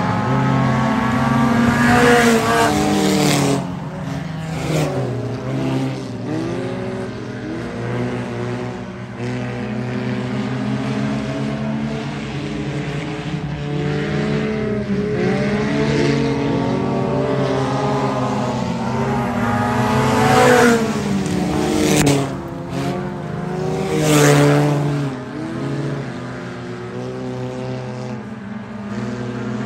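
Several stock car engines racing on a dirt oval, their pitches rising and falling as they rev and lift around the track. They swell loudest as cars pass close by, near the start and twice more about two-thirds of the way through.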